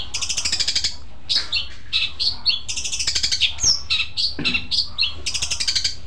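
Long-tailed shrike (cendet) singing, giving its mimicked kingfisher call ('tengkek'): repeated fast, high rattling phrases with short sliding whistles between them.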